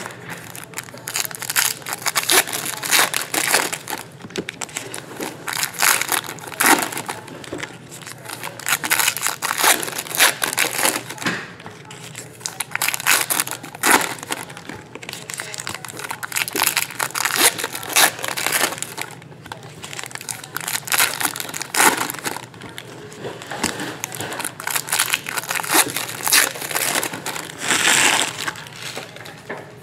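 Plastic trading-card pack wrappers being crinkled and torn open by hand: an irregular, continuous run of crackling and crinkling.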